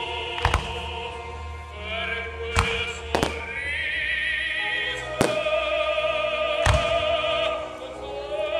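Operatic singing with orchestral accompaniment, broken by about five sharp bangs of aerial firework shells bursting, a second or two apart.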